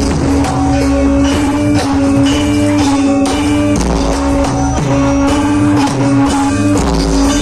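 Loud music with a note held through most of it over a steady percussive beat.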